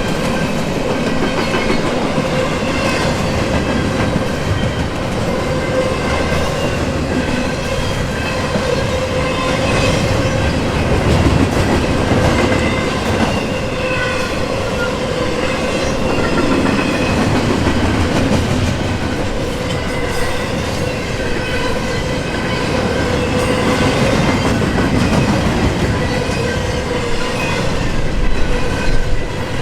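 Intermodal container train cars rolling past steadily, wheels clacking over rail joints, with a steady ringing whine from the wheels on the rails.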